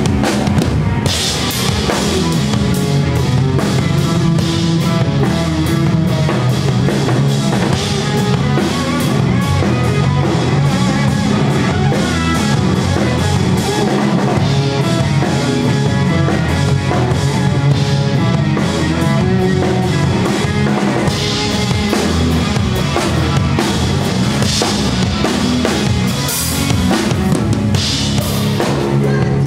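Rock band playing live, loud: drum kit, electric guitars and bass.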